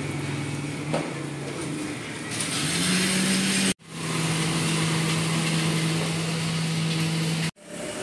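A motor running with a steady hum that rises a little in pitch and gets louder about two and a half seconds in, broken off sharply twice for a moment.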